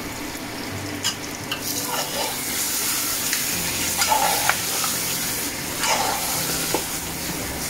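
Lamb curry with fresh tomato and spring onion sizzling in an aluminium pot as a metal spoon stirs and scrapes through it. The sizzle grows louder about a second and a half in, with a few light knocks of the spoon against the pot.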